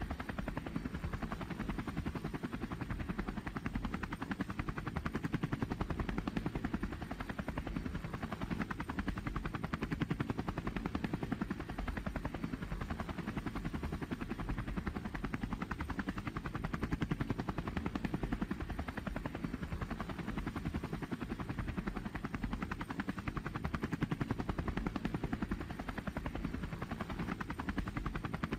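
Drone in flight: a steady, low fluttering rush of rotors and airflow that holds unchanged throughout.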